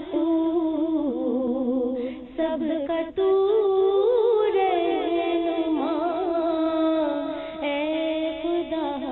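Hindi-Urdu devotional song: a voice sings a long, wavering melodic line. The singing drops away briefly about two seconds in and comes back strongly about a second later.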